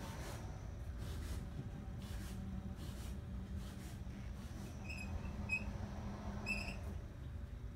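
Doorpal S-2 automatic sliding door operator running, its motor giving a steady low hum as the door panel slides along the overhead track, with a few short high squeaks in the second half.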